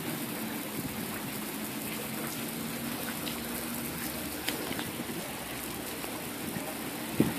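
A steady hiss like falling or spraying water, with a few faint ticks.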